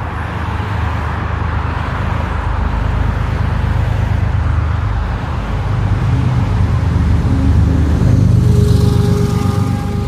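Low, steady rumble of an approaching diesel freight train mixed with road traffic, growing louder over the last few seconds, with a few faint steady tones coming in near the end.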